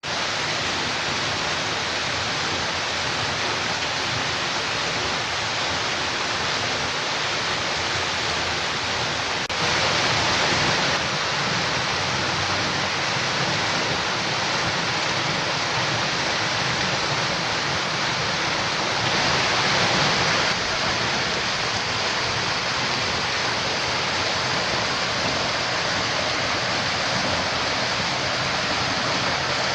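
Large waterfall plunging onto rock and water, a steady, loud rush of falling water that swells briefly twice, at about ten and twenty seconds in.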